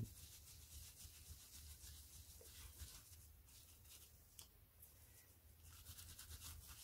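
Faint rubbing and scratching of a paper tissue wiped back and forth over a clear plastic stencil sheet, cleaning off overflowed paste.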